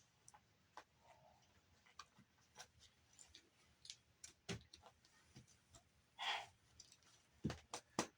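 Faint, scattered clicks and taps of pliers and plastic and metal parts being handled during a Blu-ray player teardown, with a short scrape about six seconds in and a few sharper clicks near the end.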